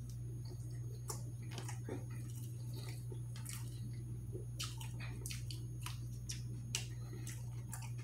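Close-up chewing of a juicy Italian beef sandwich: irregular wet clicks and smacks of mouth and lips. A steady low hum runs underneath.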